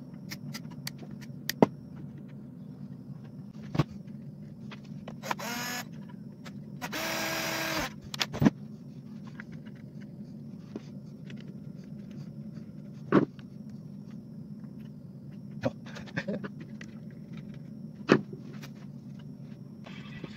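Nylon cable ties being pulled tight through their ratchets: a short buzzing zip about five seconds in and a longer one about seven seconds in, with scattered clicks and taps of handling over a steady low hum.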